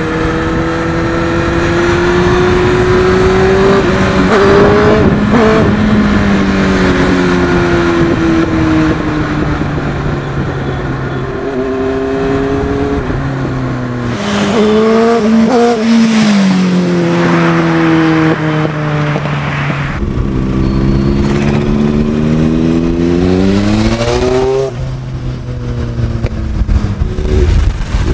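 Honda Fireblade 929's inline-four engine revving under way, its note rising and falling several times as the throttle is opened and closed, with a sharp drop in pitch about 24 seconds in.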